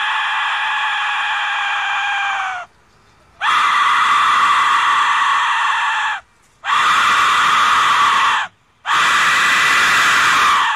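Aztec death whistle blown in long blasts. One held, shrill note sags slightly in pitch as it stops about two and a half seconds in. Three more rougher, hissier blasts follow with short pauses between.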